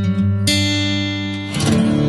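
Background music: sustained chords, with a new chord struck about half a second in and another near the end, ringing on.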